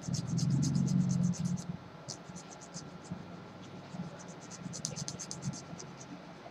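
Metal nail file rasping across fingernails in quick back-and-forth strokes, several a second, in a few short runs with pauses between.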